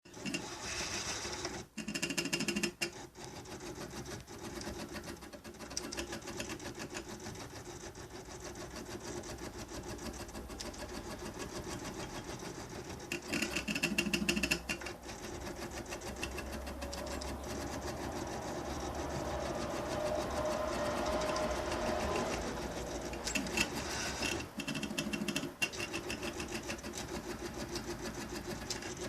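Salvaged stepper motors of a homemade Arduino-driven CNC drawing machine buzzing as they step through their moves. Louder stretches of movement come about 2 s, 13 s and 24 s in, and a humming tone rises in pitch around 21 s.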